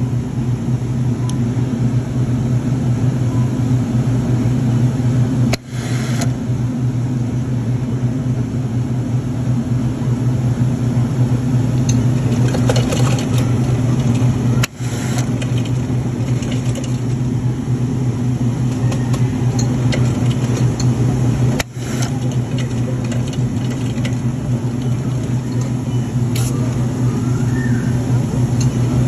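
Soda fountain dispenser running as it pours cola into a foaming cup: a steady low mechanical hum with faint crackle from the fizzing foam. The sound dips out briefly three times.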